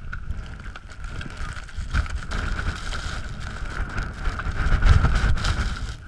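Storm wind buffeting the microphone in uneven gusts, a low rumble that is strongest about five seconds in, with a thin higher whistle in the middle.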